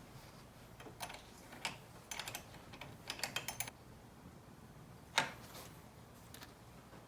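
Light metallic clicks and taps of a 10 mm wrench and terminal clamp as the negative cable is fitted and tightened onto a car battery post. There is a quick run of clicks about three seconds in and one sharper click a little after five seconds.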